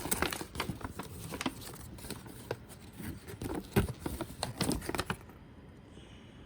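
A paper instruction manual being unfolded and leafed through: irregular rustling and crinkling of paper with small clicks and taps, stopping about five seconds in.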